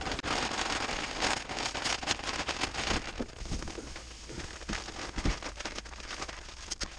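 Black Diamond coal slag blasting grit poured from its bag into a JobSmart benchtop sandblast cabinet, a dense granular rain of tiny ticks on the cabinet's grate and floor. It thins to scattered ticks and bag crinkling in the second half.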